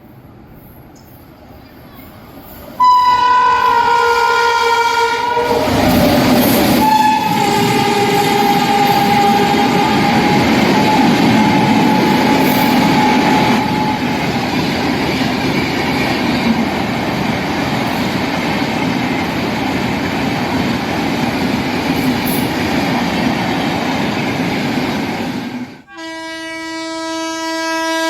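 A fast Indian passenger train passing close by: its locomotive horn sounds loudly and drops in pitch as the train goes past, then the coaches rush and clatter by for about twenty seconds. Near the end the sound cuts off abruptly and a different, lower horn sounds.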